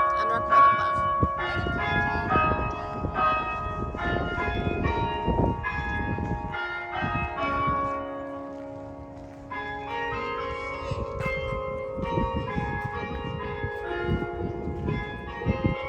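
Mission San José church bells ringing, several bells struck in quick succession with overlapping, lingering tones. The strikes thin out about six seconds in and pick up again about three seconds later.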